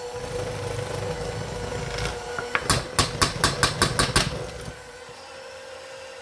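Electric hand mixer running, its beaters churning a thick mascarpone and cream cheese mixture in a stainless steel bowl, with a quick run of about eight sharp knocks against the bowl a little past halfway. Near the end the churning drops away and only the motor's steady whine is left.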